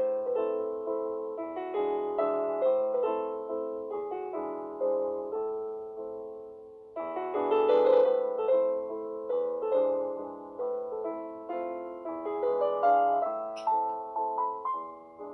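Background piano music: a gentle melody of struck notes that each fade away, growing fuller and louder about halfway through.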